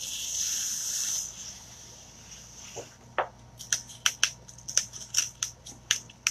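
Terry cloth patted onto and pulled off the sticky adhesive side of a vinyl chalk transfer ('fuzzing' it to take off some of its tack). A rustle lasts about a second, then about halfway through comes a quick run of short crackling pulls, three or four a second.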